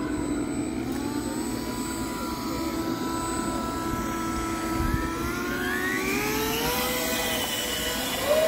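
1/10-scale RC pontoon boat's motor and propeller whining steadily, the pitch rising about two-thirds of the way through as the motor speeds up, then holding at the higher pitch.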